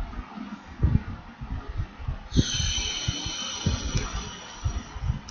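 Irregular low, dull thumps. A high, steady whine made of several tones comes in about two seconds in and stops just before the end.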